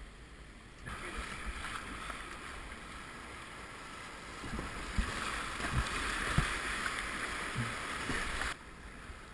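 Rushing whitewater around a kayak on a river run. It starts suddenly about a second in and cuts off abruptly near the end, with several low thumps in the second half.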